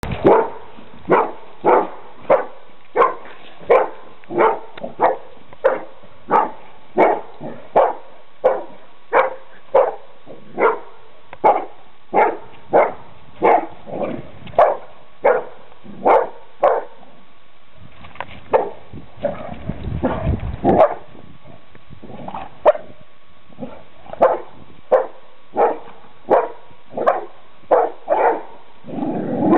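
Dog barking repeatedly and steadily at a snake it is attacking, about one and a half barks a second. Past the middle the barking stops for a few seconds while a low rumbling noise is heard, then it starts again.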